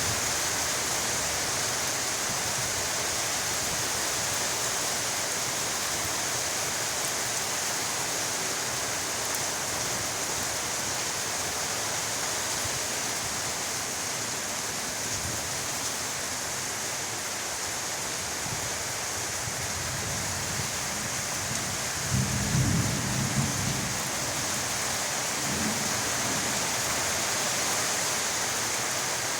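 Heavy tropical rainstorm: rain falling steadily as an even hiss, with a couple of brief low rumbles about three quarters of the way through.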